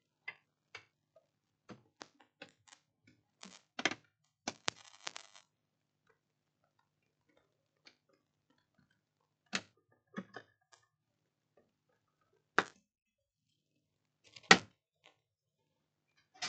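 Scattered light clicks and knocks of tools and test leads being handled on a workbench, with long quiet gaps between them and the sharpest knock near the end.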